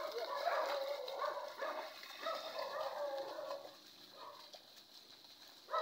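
An animal calling: a run of short calls that bend in pitch, busiest in the first three seconds or so, then fainter.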